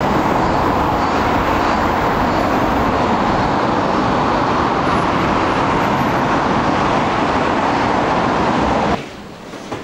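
Steady city street traffic noise, cutting off suddenly near the end.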